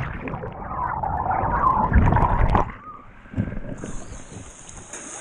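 Muffled underwater churning and bubbling as the microphone is plunged into a canyon pool; the bright rushing-water hiss is cut off, then comes back about four seconds in as it surfaces.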